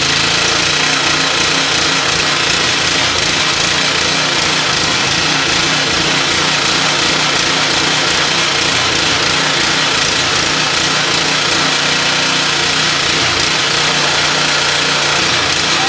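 Pressure washer running steadily, its jet hissing against a large steel gear and shaft, with a steady machine hum underneath.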